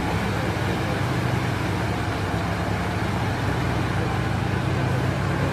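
Off-road truck's engine running hard at a steady pitch as the truck pushes through deep mud and water, with a steady hiss of churned mud and spray over it.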